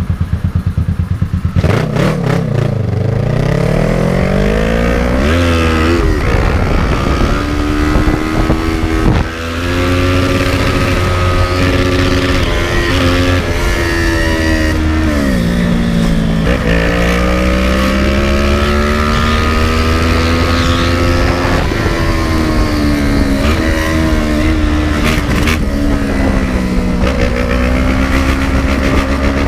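Kawasaki ER-6n's 650 cc parallel-twin engine, ridden through the gears. Its pitch climbs under throttle and drops sharply at each upshift, several times over.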